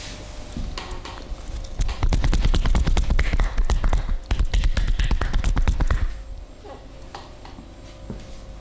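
Massage percussion: a rapid run of rhythmic hand strikes, chopping or slapping on the client's body, starting about two seconds in and stopping after about four seconds. Softer handling sounds come before and after.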